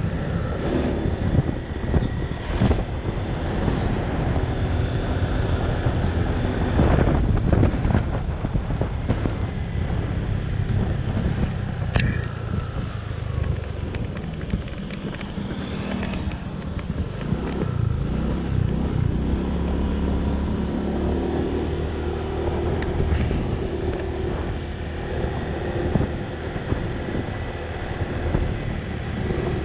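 Honda scooter riding along a road: its small engine running steadily under the rider, with tyre and wind noise on the microphone. A single sharp click about twelve seconds in.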